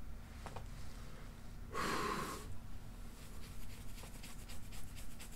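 A man's loud breathy sigh about two seconds in, then faint rapid clicks and rustling as he stretches and yawns.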